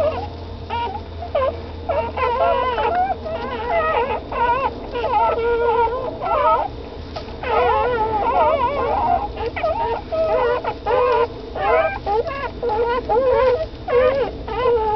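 A litter of newborn Shetland sheepdog puppies whimpering and squeaking, many short wavering high-pitched cries overlapping almost without pause.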